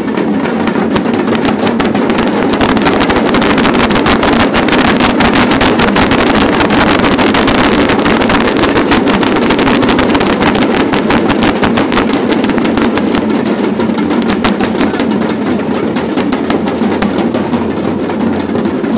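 A troupe of large laced drums with brass shells played together in a fast, dense, unbroken rhythm, loud throughout.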